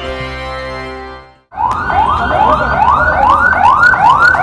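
News theme music fading out, then about a second and a half in an emergency vehicle's siren starts, sounding in a fast yelp: quick rising sweeps, about two a second.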